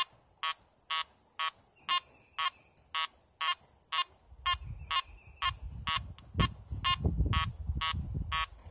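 Makro Multi Kruzer metal detector in two-tone mode at 5 kHz, giving short beeps about twice a second as its coil passes back and forth over a dime buried 10 inches deep: the target signal. From about halfway, a low rumbling noise joins the beeps.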